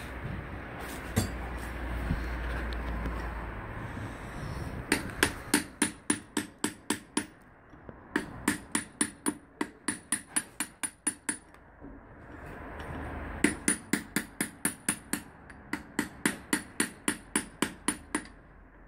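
Quick hammer blows on a steel drift against an Opel Corsa rear brake drum hub, knocking out the wheel bearing: four runs of sharp, ringing metal strikes at about five a second, starting about five seconds in, after a low rumble.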